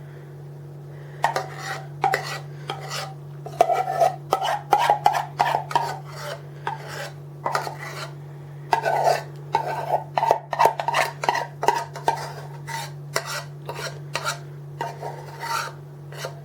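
A spoon scraping a thick, warm honey, mustard and flour mixture out of the pan in quick, irregular strokes, starting about a second in.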